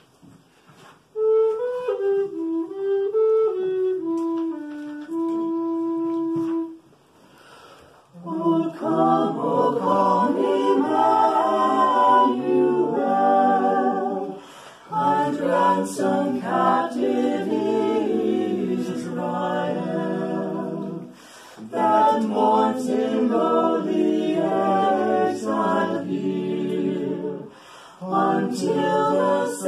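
A wooden recorder plays a short solo melody line, then a small mixed group of voices sings a cappella in harmony, in phrases with brief breaths between them.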